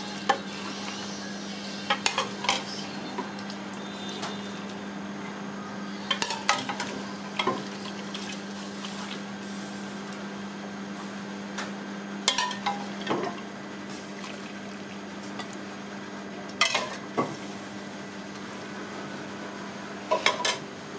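A metal ladle clinking against an aluminium stockpot and a stainless steel pan as broth is scooped and poured, in short clusters of sharp clinks. A steady hum runs underneath.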